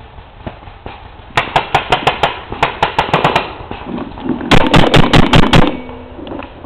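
Paintball markers firing in two rapid strings of shots: about a dozen quick pops, then after a short gap a shorter, louder run of about seven.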